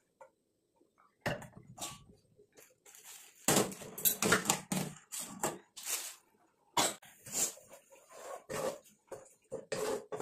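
A spatula stirring and tossing cha-om shoots with shrimp paste in a stone-coated non-stick pan, giving irregular scrapes and clatters that come in busy runs after the first second.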